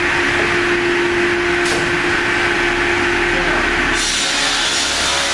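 Round-log sliding circular sawmill running: a steady mechanical noise with a constant hum. About four seconds in the hum stops and a brighter hiss takes over as the log on the sliding carriage moves up to the saw blade.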